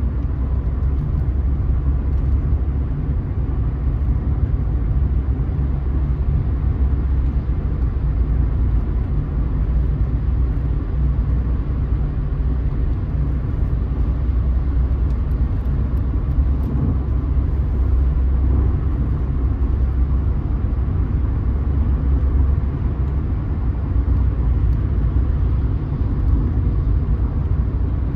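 Mercedes-Benz car cruising on a motorway, heard from inside the cabin: a steady low rumble of road, tyre and engine noise.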